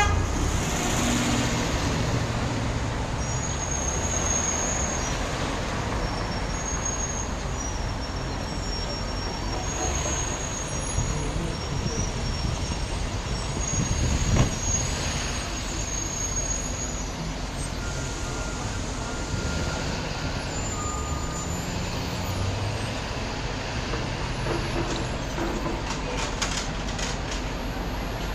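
Busy city street traffic: cars, vans, trucks and buses running and passing, with brief high-pitched squeals. A truck passing close makes the loudest moment, about halfway through.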